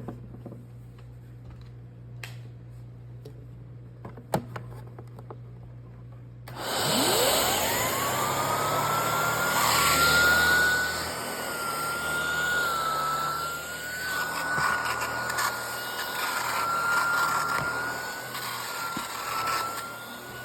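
A few clicks of handling, then about six seconds in a Shark vacuum is switched on: its motor whine rises over a second or two to a steady high pitch over rushing air. The level swells and dips as it runs with the freshly cleaned and reassembled pet hair tool fitted.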